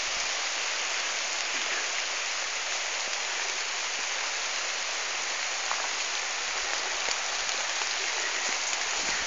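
Steady hiss of rain falling on leaves and ground, with no letting up.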